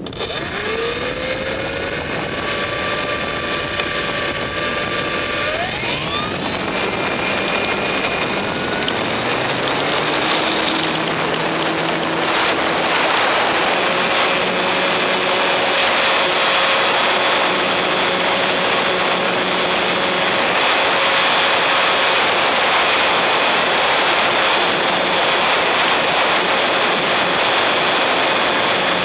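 Electric motor and propeller of a radio-controlled model plane, heard up close from a camera mounted on it, over a rush of air. The whine rises as the throttle opens for the takeoff, jumps sharply in pitch about five seconds in, drops back a few seconds later, and then holds a steady drone in flight.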